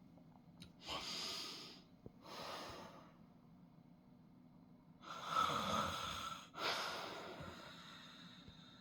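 A man snoring in his sleep: two cycles of noisy breathing in and out, with a quiet gap of about two seconds between them. The second cycle is louder.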